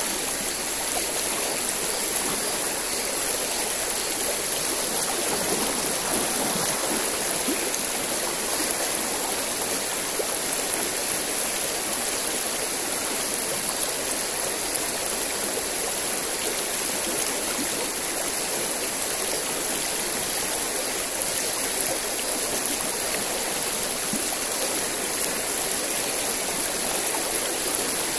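Shallow stream with a moderate current rushing steadily, with a steady high-pitched hiss above it.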